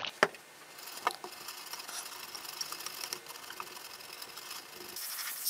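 A small bristle brush scrubbing flux cleaner over the solder joints of a circuit board: a fast, steady, scratchy rasping, with a sharp click just after the start and another about a second in.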